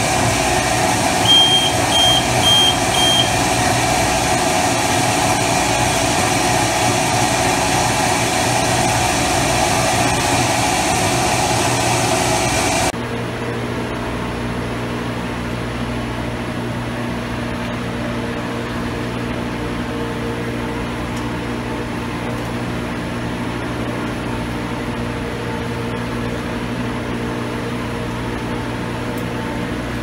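Steady machinery hum of an industrial microwave grease reactor running, with four short, high beeps between about one and three seconds in. About thirteen seconds in, the sound drops suddenly to a quieter, lower steady hum.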